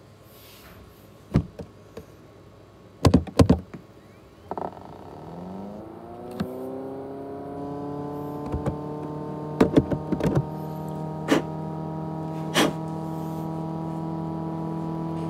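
External 500 GB USB hard drive spinning up: after a few sharp clicks and knocks, a click is followed by a motor whine that rises in pitch and settles into a steady hum, with more clicks on top of it.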